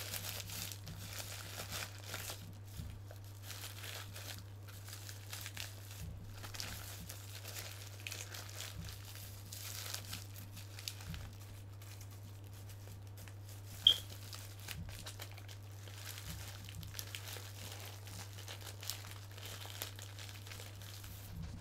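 Plastic packaging crinkling and rustling as it is handled and pulled away from an action figure, with a steady low hum underneath and one sharp click a little past the middle.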